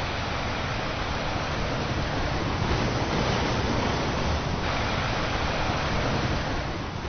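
A steady rushing noise with a deep rumble under it, fading out near the end.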